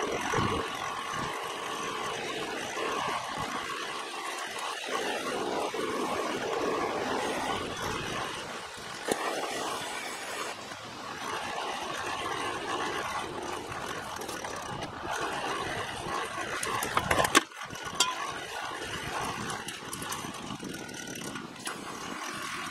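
A propane hand torch hisses into the coal of a small forge while a hand-cranked forge blower whirs, to get the coal fire lit. There are a few sharp clicks about three quarters of the way through.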